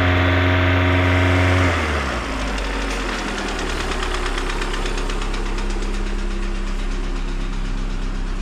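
LADA Priora four-cylinder petrol engine held at raised revs, then dropping back to idle about two seconds in, and idling with a steady knock. The mechanic takes the knock for a piston knock that fades as the engine warms up.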